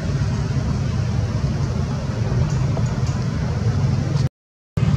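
Steady low rumble of outdoor background noise with no distinct events, cutting out to silence for about half a second near the end.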